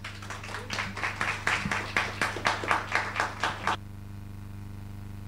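People clapping in applause, sharp claps in quick succession that cut off suddenly a little under four seconds in. A steady low hum runs underneath.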